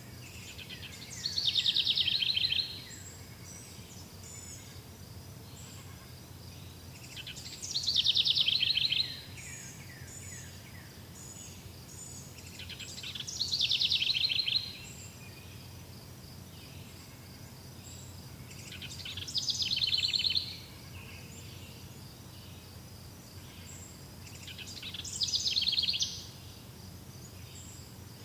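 A songbird repeating the same song five times, about every six seconds, each a fast trill of rapid notes that slides downward and lasts about a second and a half. Steady insect chirring and a low hum run underneath.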